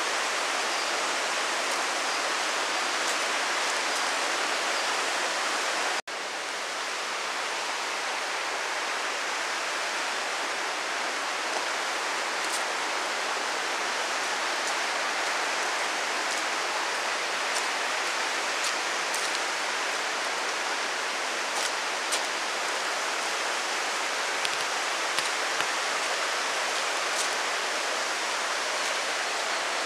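Mountain stream rushing in a rocky gorge: a steady, unbroken rush of water, with a momentary break about six seconds in.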